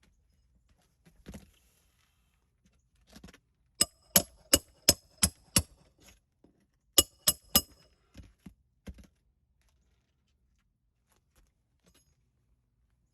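Quick hammer blows with a metallic ring on roofing work: a run of six fast strikes about four seconds in, then three more a few seconds later, with a few lighter taps after.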